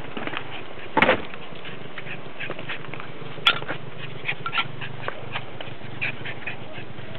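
A puppy playing: scattered light clicks and scuffs, with one short louder sound about a second in and a sharp click a little after the middle.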